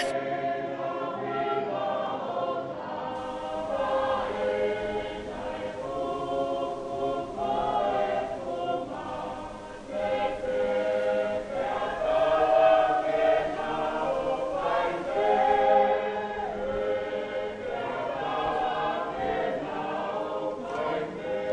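A choir of voices singing, in long held notes that shift in pitch from phrase to phrase.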